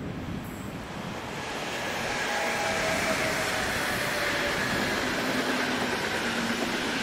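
Electric train running past on the track: its rolling noise swells over the first two seconds, then holds steady with a faint whine on top.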